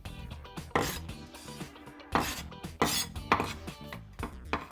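Kitchen knife cutting through stacked ham slices on a cutting board to trim off the fat: about five sharp knocks of the blade striking the board at uneven intervals.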